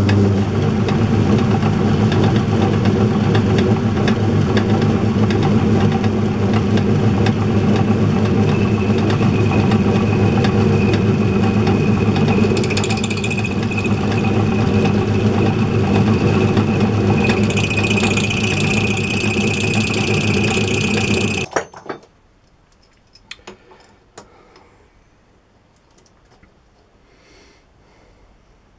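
Workshop machine tool running as its cutter takes a cut in steel plate, with a high whine from the cut rising at times. It switches off about 21 seconds in, followed by a few faint clicks.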